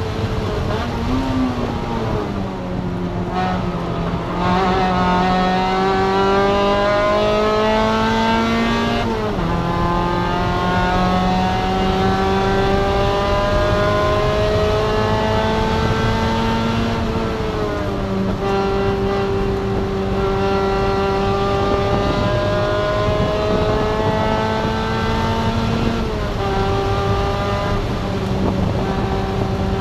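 Spec MX-5 race car's four-cylinder engine accelerating through the gears: its pitch climbs slowly and steadily, then drops sharply at an upshift about nine, seventeen and twenty-six seconds in.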